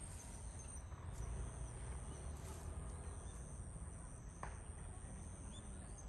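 A steady high-pitched insect trill, like a cricket, with a few short, faint bird chirps, one of them a quick rising note about four and a half seconds in, over a low wind rumble.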